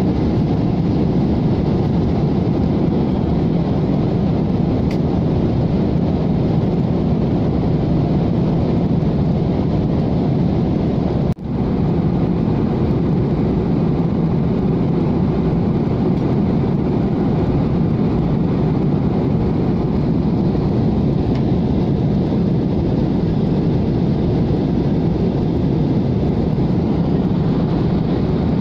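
Steady cabin noise of a Boeing 737 airliner in flight: a continuous deep rush of jet engines and airflow heard through the fuselage. It drops out for an instant about a third of the way through.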